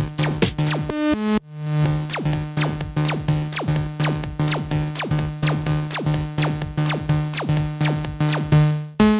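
Techno track: rapid downward-sweeping synth blips over a held bass note, with no kick drum. The sound drops out briefly about a second and a half in, and again just before the end.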